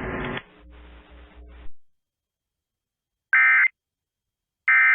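Emergency Alert System end-of-message data tones: two short, identical, harsh digital bursts about a second and a half apart, the coded signal that closes an EAS alert.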